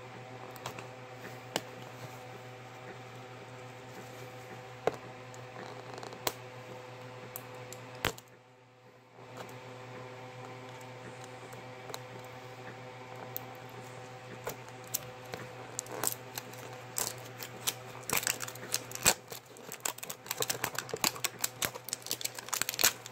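Fingers and fingernails picking at and peeling crinkly plastic shrink-wrap off a hard plastic surprise egg: scattered clicks at first, growing into dense crackling over the last several seconds. A steady low hum runs underneath, and the sound drops out briefly about eight seconds in.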